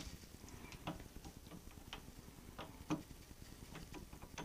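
Atlas lathe change gears being turned by hand, their teeth giving off faint, irregular ticks and clicks as they mesh. There is a louder clack about a second in and another near three seconds.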